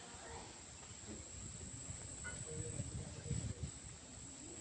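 Insects trilling steadily, a high-pitched continuous drone, with a few low muffled bumps on the microphone about halfway through.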